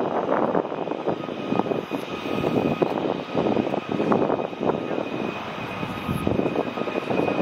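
Airliner engines running: a steady high whine over a rushing, fluctuating noise.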